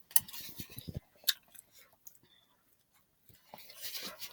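Close-up mouth sounds of someone eating spicy noodles: chewing with short wet clicks, one sharp click just over a second in, then a brief lull and a soft breathy noise near the end.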